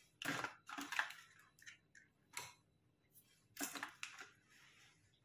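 Faint, irregular light crackles and taps, about half a dozen, as crisp hollow puri shells filled with boiled chickpeas are handled and set down on a plate.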